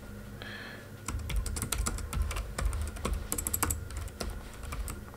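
Typing on a computer keyboard: a quick, irregular run of keystrokes, sparse at first and then steady from about a second in.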